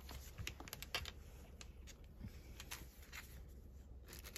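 Faint paper rustling and a scatter of light clicks and taps as planner pages and inserts are handled, the sharpest tap about a second in.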